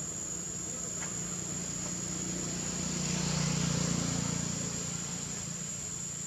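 A distant engine hum that swells to its loudest about three to four seconds in and then fades, like a vehicle passing, over a steady high-pitched whine.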